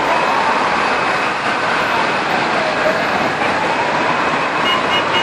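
Emergency vehicle siren wailing slowly up and down over loud, steady traffic noise.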